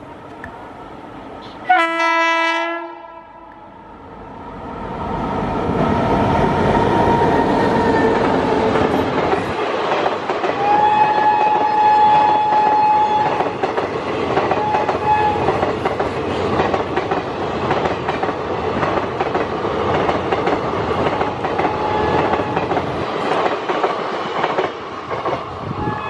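WAP7 electric locomotive sounding its twin-tone horn once, for about a second, then the express train rushing past at speed, its coaches clattering with a rhythmic clickety-clack over the rail joints.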